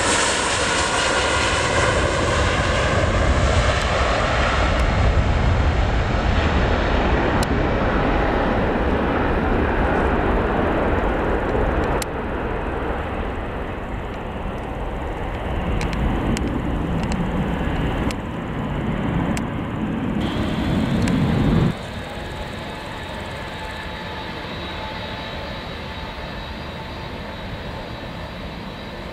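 Boeing 757 jet engines at takeoff power: a loud, steady jet noise through the takeoff roll and climb-out. About 22 seconds in it drops suddenly to the quieter, steady whine of a 757's engines at idle while taxiing, with a slight rise in pitch near the end.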